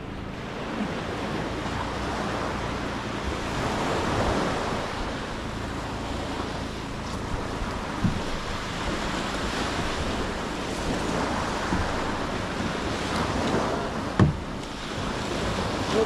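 Small surf breaking and washing up a sandy beach, swelling and easing, with wind buffeting the microphone. A few short sharp knocks stand out, one about halfway through and the loudest near the end.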